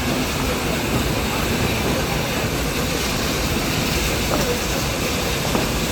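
Nilgiri Mountain Railway toy train running along the track: a steady rumble of wheels and carriages on the rails.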